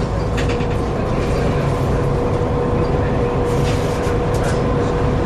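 Volvo B7TL bus running, a low engine rumble with a steady high whine held over it and a few short rattles. The whine is the strange whining noise this bus is known for.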